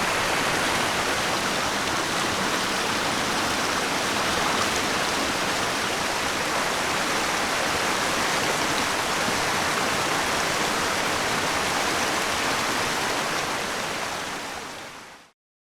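Steady rushing water noise, even and unbroken, fading out about a second before the end.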